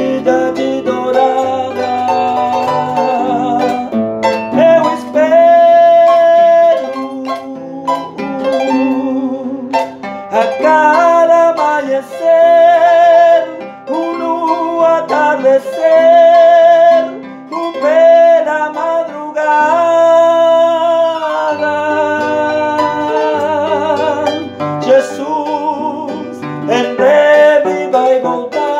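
A man singing with vibrato, holding long notes, while accompanying himself on a large wooden harp with plucked notes and arpeggios.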